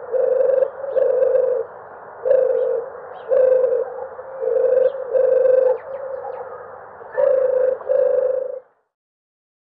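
Streptopelia dove cooing: about eight low coos, mostly in pairs, with small birds chirping faintly behind. The recording cuts off suddenly near the end.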